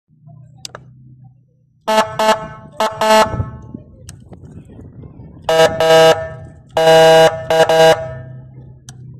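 Whelen 295SL100 electronic siren sounding its air-horn tone through a 200-watt speaker in short steady-pitched blasts: four quick ones about two to three seconds in, then five more between about five and a half and eight seconds, one longer than the rest.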